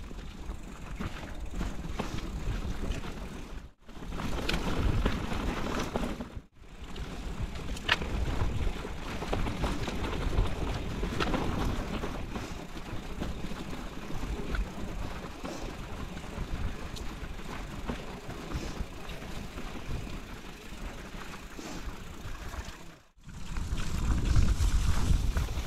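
Mountain bike riding over a dirt trail, heard through a GoPro's microphone: a steady rumble of tyres and wind on the microphone, with sharp clicks and rattles from the bike. The sound drops out briefly three times.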